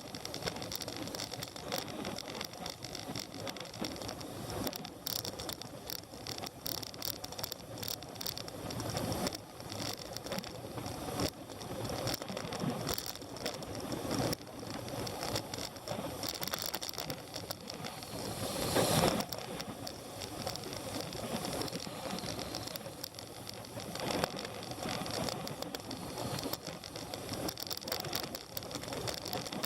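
Steady rattling and running noise of a vehicle on the move, with dense small clatters throughout and a brief louder swell about two-thirds of the way through.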